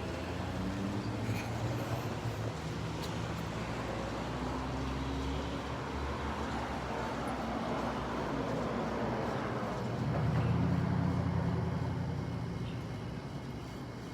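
Motor vehicle traffic: low engine rumble with passing tyre noise, swelling to its loudest about ten seconds in and fading near the end.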